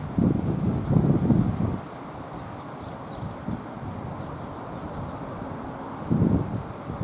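Wind gusts buffeting the microphone as low rumbles, strongest near the start and again near the end, over steady high-pitched chirping of insects.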